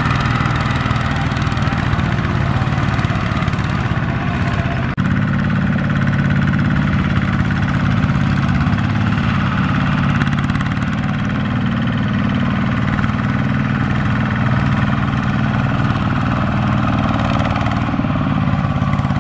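Single-cylinder diesel engine of a two-wheel walking tractor running steadily as it hauls a loaded rice trailer through mud, with a brief break in the sound about five seconds in.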